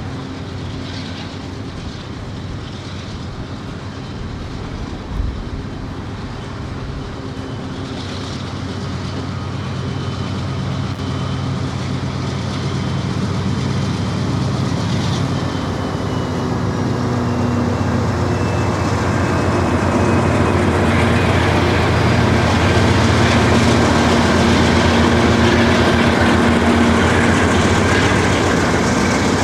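Diesel locomotives of a crude oil freight train running slowly past, a steady engine drone that grows louder through the second half.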